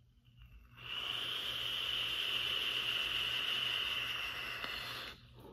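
Vape draw through a dual-coil 22 mm Goon rebuildable dripping atomizer on a box mod: a steady hiss of air pulled through the firing atomizer, with a thin high edge to it. It starts about a second in and lasts about four seconds before cutting off near the end.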